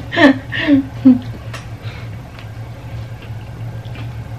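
A short laugh trails off in the first second. Then a few faint clicks and smacks of people eating with their hands sound over a steady low room hum.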